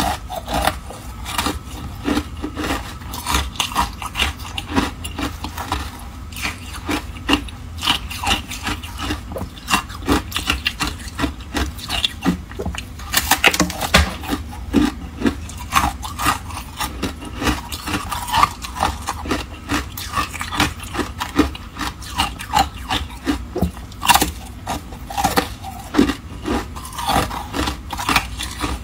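Close-miked crunching and chewing of frozen matcha ice, mixed with a thin slab of ice scraping through a bowl of crumbly frozen matcha. It is a dense, irregular run of short crisp crunches and scrapes with no pauses.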